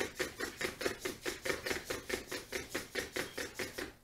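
XGO Lite quadruped robot dog stepping on a hardwood floor as it turns, its feet and leg servos making a quick, even clatter of about six steps a second. The clatter stops abruptly at the very end.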